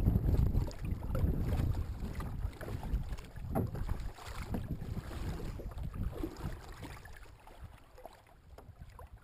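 Kayak paddle strokes: the blades of a double-bladed paddle dipping and splashing in the water, with wind rumbling on the microphone, heaviest in the first couple of seconds. The strokes die away near the end as the paddling stops.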